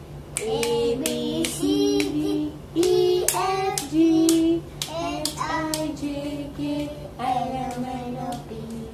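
A young child singing a song in short held notes, gliding between them, with a few sharp hand taps in between.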